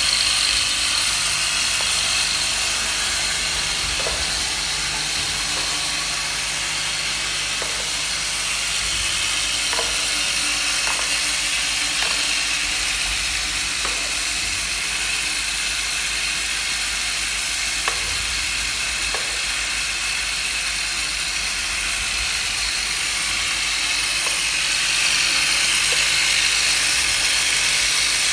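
Vibratory bowl feeder running, with small parts chattering and rattling continuously over a faint low hum. Now and then a light click or knock sounds.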